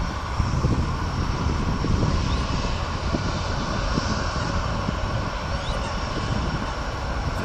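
Jet airliner's engines heard from the ground as the plane goes by: a steady, loud rumble with a broad hiss.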